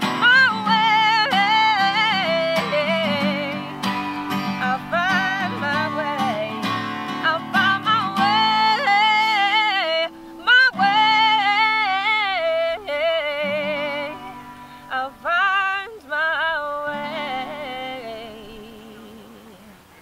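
A woman sings a country song to her own acoustic guitar, strumming as she sings. Held notes waver, and the song winds down, its last notes and strums fading out near the end.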